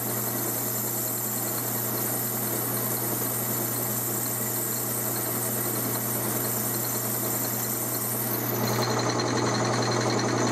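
12-inch Atlas metal lathe running with a steady hum while it turns a brass flywheel on an aluminum arbor. About eight and a half seconds in the sound changes and gets slightly louder.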